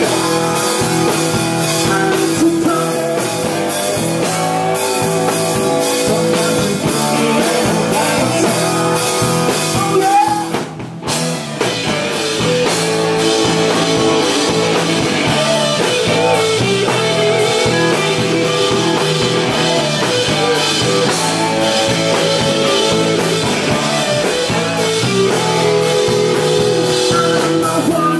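Live rock band playing: distorted electric guitars, bass and drum kit, with a male singer. The music breaks off for a moment about eleven seconds in and then comes back in.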